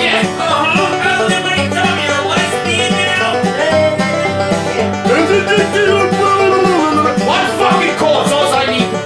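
Music with a steady beat and a melody line that glides in pitch, country in style.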